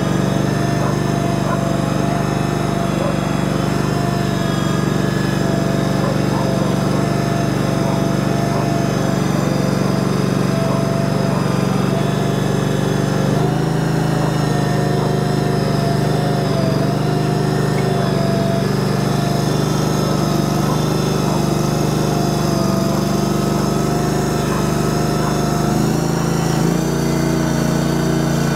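Small engine of a ride-on shed mover running steadily under load while the machine carries a chicken coop on its hydraulic lift. Its note shifts slightly about halfway through and again near the end.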